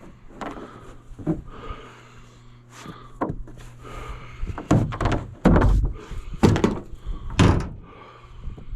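A series of irregular thumps and knocks, about nine in all, the loudest in the second half, over a faint steady low hum that fades out about five seconds in.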